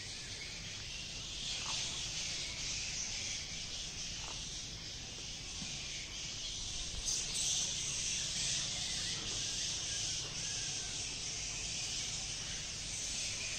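Dawn chorus: many birds calling at once all around, a steady high chatter with a few separate calls standing out.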